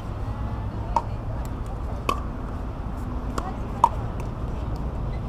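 Pickleball paddles striking the hollow plastic ball: a series of sharp pops, each with a brief ring, the loudest about four seconds in, over a steady low rumble.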